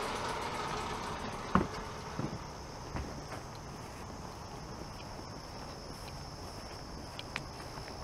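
Insects chirring steadily on one high note, with a few sharp clicks or knocks scattered through. A low hum fades away in the first second.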